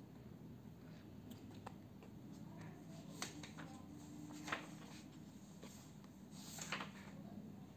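Paper pages of a paperback book handled as it is read: a few brief soft rustles and clicks, about three seconds in, again near the middle (the loudest), and once more near the end, over faint room hum.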